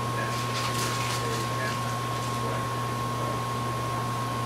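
Steady electrical hum and fan-like hiss with a thin, constant high whine, with a few faint rustles or clicks in the first second and a half.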